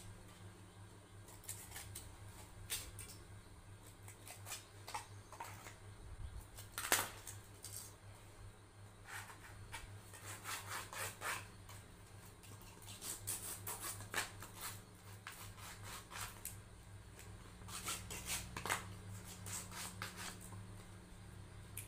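Scissors snipping through thin embossed metallic foil, then the foil crinkling and rustling as it is pressed and folded by hand, in scattered short clicks and rustles over a steady low hum.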